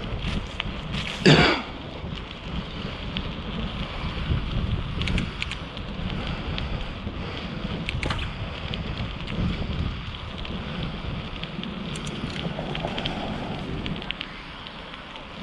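Wind buffeting the microphone with steady rumbling road noise while riding a bike. There is a brief, loud, sharp sound about a second in and scattered light clicks.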